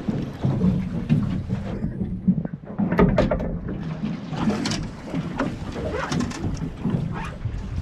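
Water slapping against a small aluminium boat's hull, with wind on the microphone and a few short, sharp splashes or knocks.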